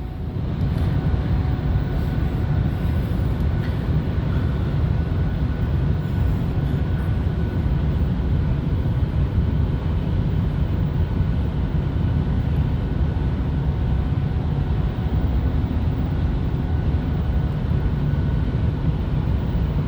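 Steady low vehicle rumble with a faint thin whine above it, holding an even level without rising or falling.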